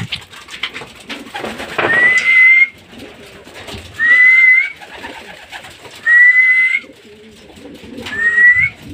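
Four short, loud whistled notes, one about every two seconds, each gliding up slightly at the start and again at the end: a person whistling in the pigeon loft. Pigeons coo faintly underneath.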